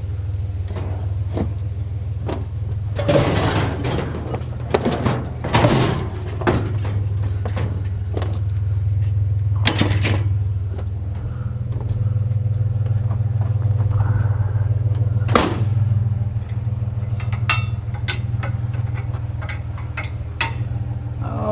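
Truck engine idling steadily, with scattered knocks and clatter over it, busiest about three to six seconds in and with sharp single knocks near ten and fifteen seconds.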